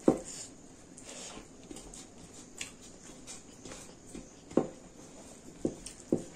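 Close-up eating sounds of a person eating rice and dal by hand: fingers mixing rice on a metal plate, with chewing and mouth smacks. A sharp smack comes right at the start and three more come in the last two seconds.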